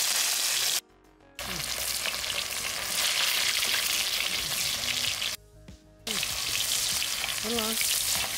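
Whole masala-coated fish frying in shallow oil on a large flat tava, a steady loud sizzle. The sizzle drops out twice for about half a second, about a second in and again past the middle.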